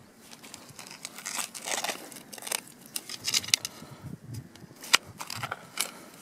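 Steel spade digging into stony ploughed soil: irregular crunching and scraping as the blade cuts and levers the earth. There is a sharper knock a little before five seconds in.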